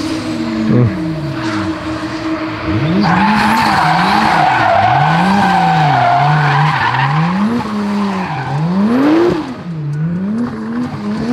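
A drift car's engine revving up and down over and over as the throttle is worked through a slide. Its tyres squeal loudly from about three seconds in until about seven seconds in.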